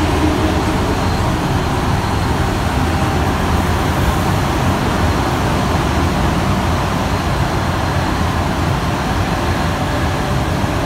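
Steady running noise heard inside a rubber-tyred Alstom NS-93 metro car travelling between stations: an even low rumble of tyres and traction gear with a hiss over it, holding level throughout.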